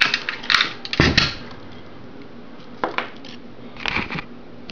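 Key ring jingling and a key clicking in the lock of an Automatic Electric payphone's metal coin-box door. There is a quick clatter of clicks in the first second or so, then single clicks and a short rattle about four seconds in.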